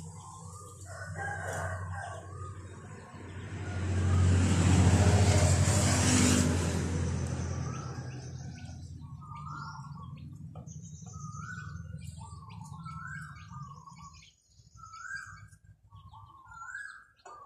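Chickens crowing and clucking, with short bird chirps repeating about once a second in the second half. Underneath runs a steady motor hum that swells loud for a few seconds about four seconds in and cuts out abruptly near fourteen seconds.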